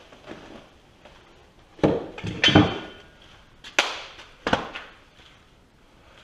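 A few separate knocks and clunks of hard objects being handled and set down, about four in all, the loudest around two and a half seconds in with a brief metallic ring.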